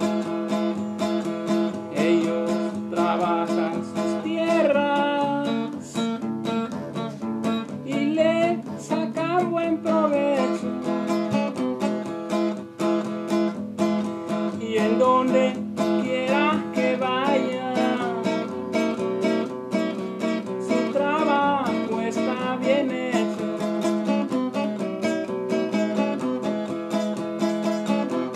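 Acoustic guitar strumming a steady accompaniment, with a wavering melody line over it: an instrumental passage of a song.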